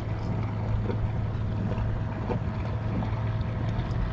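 Steady wind noise on the microphone over the wash of surf, with a low steady hum underneath.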